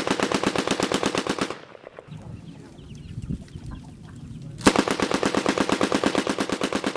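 Automatic machine-gun fire in two long sustained bursts of rapid, evenly spaced shots. The first burst stops about a second and a half in, and the second starts near the five-second mark and runs on. Between them there are only quieter scattered sounds.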